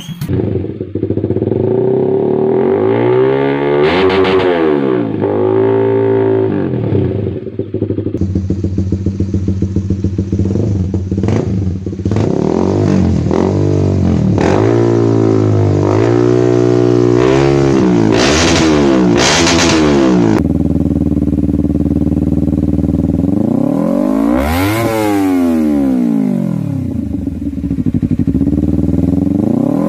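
Motorcycle engines running through aftermarket SC Project exhaust mufflers, idling and revved up and back down again and again. A burst of quick, repeated throttle blips comes in the middle, and the sound changes to a different bike about 8 seconds in and again about 20 seconds in.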